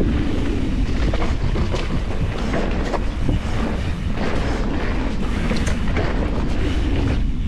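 Mountain bike rolling fast down a dirt trail, with wind buffeting the camera's microphone, a steady rumble and a few scattered clicks and knocks from the bike over bumps.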